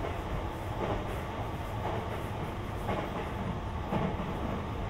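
Sotetsu 20000 series electric train running between stations, heard from inside the passenger car: a steady low rumble of wheels on rail with a clack from the rail joints about once a second.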